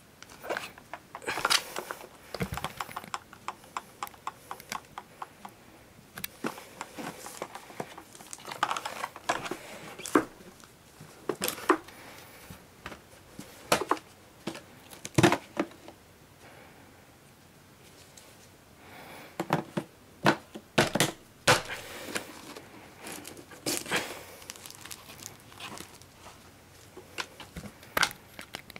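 Plastic packaging crinkling, with hard plastic parts of a new Miele canister vacuum clicking and knocking as they are handled. The clicks and knocks are irregular, with a quieter gap about halfway through.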